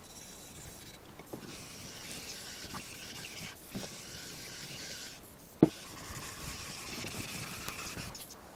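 Coarse 220-grit Norton water stone rubbed over the flat metal face of a magnetic sine chuck with water, a steady gritty hiss in long back-and-forth strokes, with a sharp click a little past halfway.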